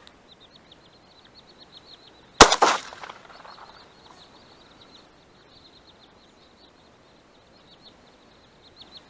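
A single shotgun shot about two and a half seconds in, with a short echo: a finishing shot at a wounded drake on the water. A faint, high, rapid ticking call goes on behind it.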